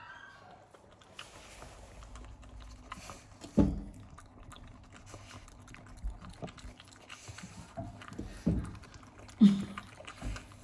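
Raccoon eating cooked rice from a stainless steel pot, close-up: a steady run of small, irregular chewing and smacking sounds, with four louder thumps, the loudest near the end.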